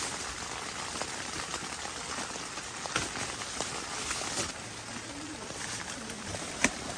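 Heavy rain pattering steadily on a tent, heard from inside. A few sharp clicks from a folding camping cot's frame and legs being fitted, the loudest near the end.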